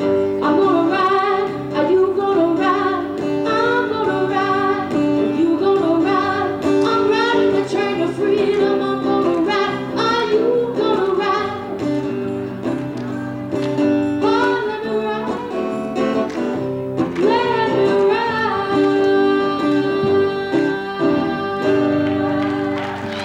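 Music: singing with guitar accompaniment.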